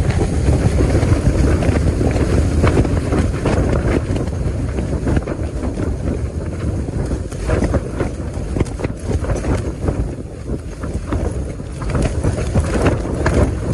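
Storm-force wind, about 30 m/s, battering a tent from inside: the nylon tent walls flap and snap again and again over a loud, steady rush of wind.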